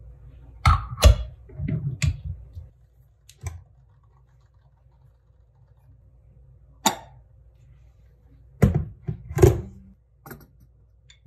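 Hard clacks and knocks of the Flair Pro 2 espresso press's metal brew cylinder and piston being handled and fitted into the press: a cluster of knocks in the first couple of seconds, a single clack about seven seconds in, and another cluster near the end, the loudest about nine and a half seconds in.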